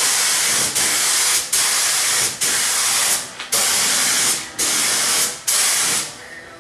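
Compressed-air paint spray gun hissing as it sprays automotive paint, in about seven passes of under a second each with brief breaks between them.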